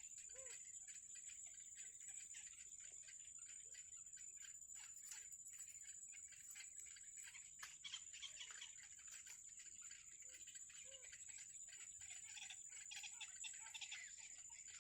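Near silence: faint outdoor ambience with a steady high-pitched whine, fine rapid ticking, and a few soft, short bird calls scattered through it.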